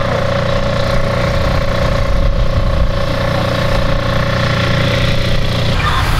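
An engine idling steadily, a low rumble with a constant high tone over it. The tone drops away shortly before the end.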